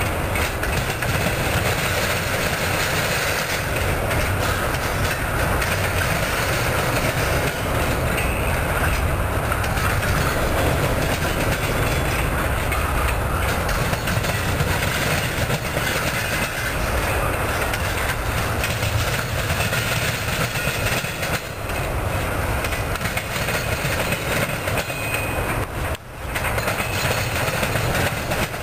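Double-stack intermodal freight train rolling past: the steady rumble and rattle of the well cars' wheels on the rails, with clickety-clack from the track. The noise briefly dips once near the end.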